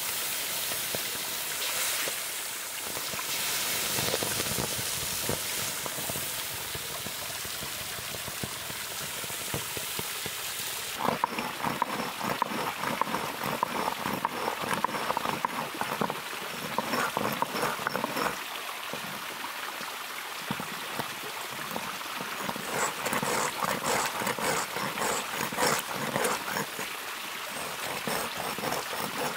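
Hot iron bloom hissing and steaming where it sits in shallow running water. About eleven seconds in, this gives way to repeated rough scraping as the iron lump is rubbed back and forth on a wet flat stone, with the stream trickling underneath.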